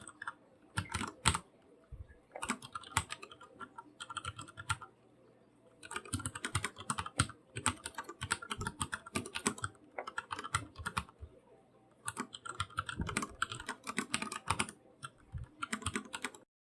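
Typing on a computer keyboard in bursts of rapid keystrokes with short pauses between, a few harder single key strikes about a second in. The typing stops abruptly near the end.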